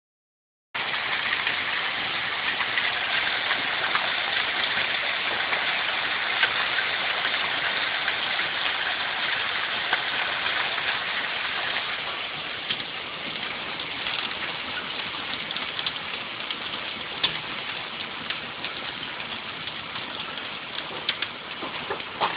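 Hail pelting down: a dense, steady clatter of countless small impacts that eases a little about halfway through.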